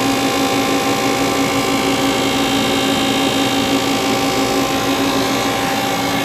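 Steady running hum and whine of a powered-up 1995 Haas HL-2 CNC turning center, heard at its open rear electrical cabinet: several unchanging pitches over an even mechanical noise.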